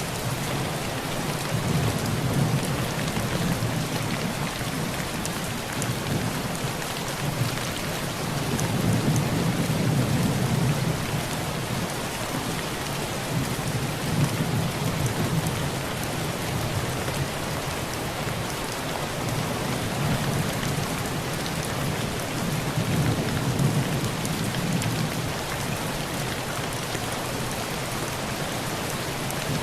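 Heavy rain falling steadily on a tin roof, with low rolls of thunder swelling and fading several times.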